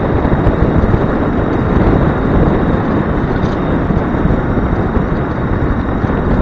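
Steady loud rush of wind buffeting the microphone, with road noise, while riding pillion on a moving small motorcycle.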